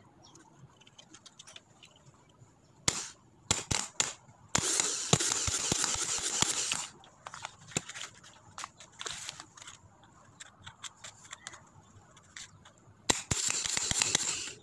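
A used starter motor bench-tested off jumper cables: sharp clicks and snaps as the clamps and wire touch the terminals, then the motor spins free with a loud rushing whir for about two seconds. It spins again for a second and a half near the end.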